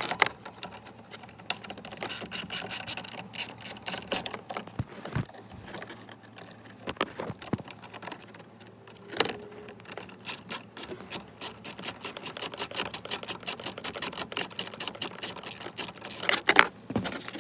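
Hand ratchet with a T20 Torx bit clicking in quick, even runs as the two screws holding a multi-function switch are backed out. There is a short run about two seconds in and a longer one of about six seconds past the middle, with a few knocks of the tool between.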